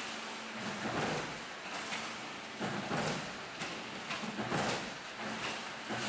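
Aluminium sheet coil feeding through a factory coil feeder's rollers: a steady low hum with a noisy mechanical surge about every second or so, as the line cycles.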